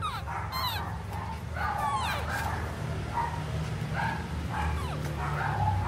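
Short high-pitched animal yelps repeated about every half second to second, several sliding down in pitch, over a low steady hum.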